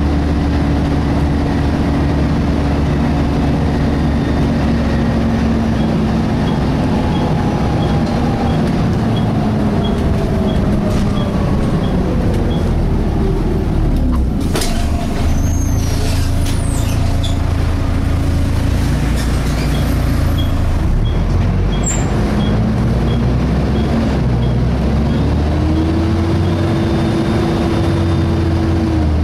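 Volvo B7TL double-decker bus's diesel engine and drivetrain heard from inside. The engine note falls as the bus slows, with a brief high squeal about halfway through. The note then climbs again as the bus pulls away, over a steady low hum.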